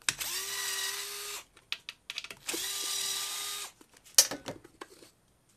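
Cordless power driver backing out cover screws: two runs of about a second each with a steady motor whine, then a few clicks and clinks as the cover and screws are handled.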